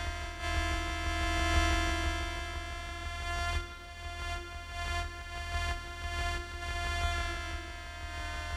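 Electronic keyboard synthesizer playing steady, sustained chords that change about three and a half seconds in, over a low drone.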